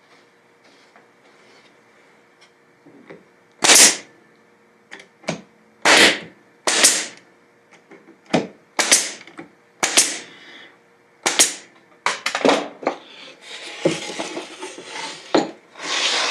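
Nail gun driving nails into MDF: a series of sharp shots about a second apart, the loudest half-dozen between about four and eleven seconds in. After that, the wooden jig pieces are shuffled and handled, with scraping and rustling.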